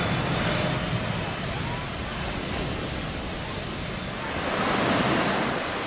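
Jet roar of a landing Boeing 777-300ER's two GE90 engines passing low overhead on final approach, a steady rushing noise that swells about four and a half seconds in, once the aircraft has gone by.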